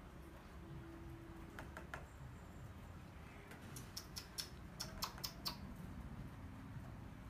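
Faint light clicks over quiet room tone: a pair about two seconds in, then a quick irregular run of them between about four and five and a half seconds in.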